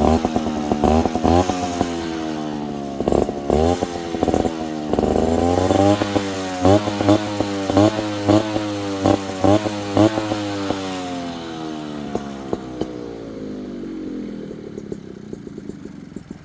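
Yamaha Chappy LB80's small two-stroke single-cylinder engine, breathing through a tuned expansion-chamber exhaust, being blipped again and again: the revs rise and fall in quick stabs, coming about twice a second through the middle. Near the end the revving stops and the engine settles lower and fades.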